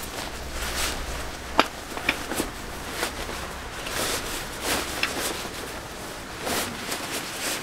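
Nylon chair fabric rustling and swishing in short bursts as a rolled-up ENO DL Lounger camping chair is worked down into its nylon carry bag, with a few sharp clicks from the packed poles, the loudest about a second and a half in.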